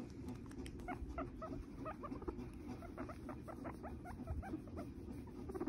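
Guinea pig chewing a kale leaf: a quick run of small crisp crunches, about five a second, that stops about four and a half seconds in.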